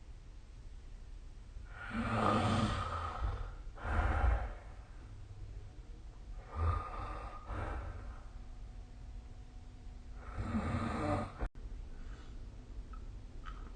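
A sleeping person snoring, with noisy breaths about two, four, seven and ten seconds in.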